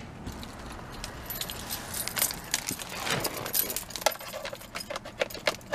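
A bunch of keys jangling and clinking on a key ring: a rapid, uneven run of small metallic clicks and rattles that starts about a second in.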